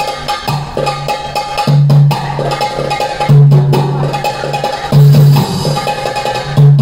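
Loud belly-dance music with hand percussion, a deep bass note pulsing about every second and a half, and a held higher tone over it.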